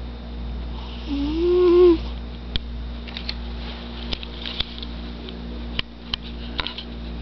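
A cat makes one short, loud pitched sound about a second in, over a steady low hum. Scattered light clicks follow.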